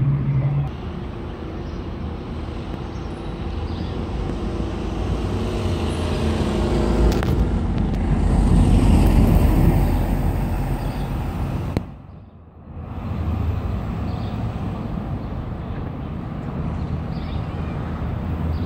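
Steady low rumble of city road traffic. It swells for a few seconds before the middle and drops away briefly about twelve seconds in.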